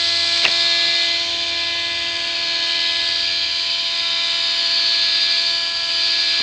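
Three-pole brushless spindle motor from an old hard disk drive, one coil pulsed at 12 V by an Arduino-switched power transistor, spinning at high speed with a steady buzzing whine of several even tones over a hiss; the owner estimates 10–13 thousand rpm. A single sharp click comes about half a second in.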